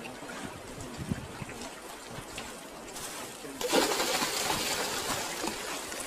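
Meltwater trickling and running by a muddy glacial pool, a steady watery hiss that turns abruptly louder about three and a half seconds in.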